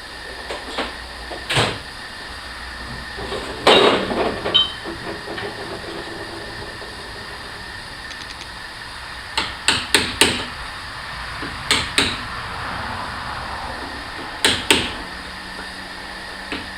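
Irregular sharp knocks and clanks of tools or parts striking metal, some single and some in quick clusters of two or three, over a steady background hum.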